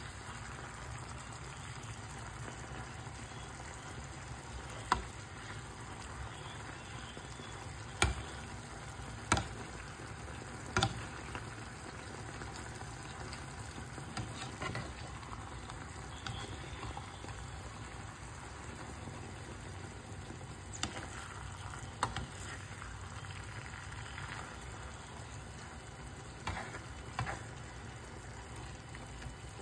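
Enoki mushrooms and meat sizzling steadily in a non-stick frying pan while being stirred, with several sharp knocks of the spatula against the pan.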